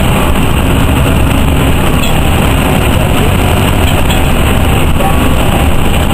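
Steady engine and road noise inside a moving NovaBUS RTS city bus, loud and even.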